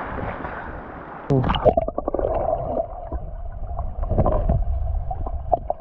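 Splashing at the river's surface, then a little over a second in the microphone goes under the water: muffled underwater gurgling and bubbling with many small clicks and knocks.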